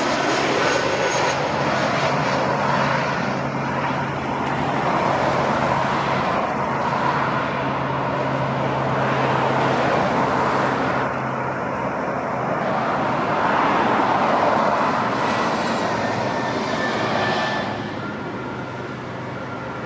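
Airbus A320neo jet engines, Pratt & Whitney geared turbofans, with a continuous rushing jet noise and a steady low tone as the airliner passes low overhead on approach and lands. The noise swells again after touchdown, then drops off near the end as the aircraft rolls away down the runway.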